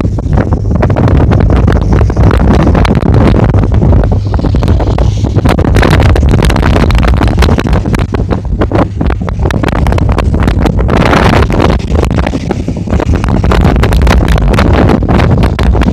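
Tugboat's diesel engine running with a steady low drone, under heavy wind buffeting the microphone. A louder rush of noise comes about eleven seconds in.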